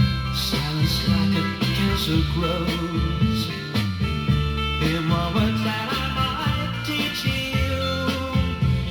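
Instrumental passage of a 1969 pop-rock band recording, with a steady beat.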